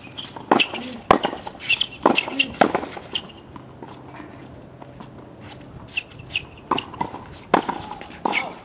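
Tennis balls struck by rackets and bouncing on a hard court during a baseline rally, with short high squeaks of shoes on the court surface. The hits stop for a few seconds in the middle, then the rally picks up again.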